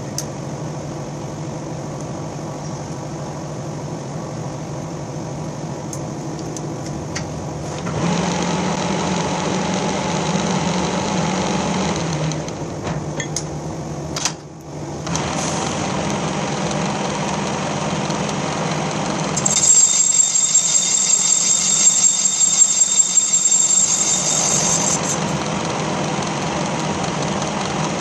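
Horizontal boring machine running, its boring bar turning in the rear main seal bore of a cast-iron Ford 302 block to open it up for a one-piece seal. The steady motor hum grows louder about eight seconds in and dips briefly near the middle. A loud high-pitched whine rides over it for about five seconds in the second half.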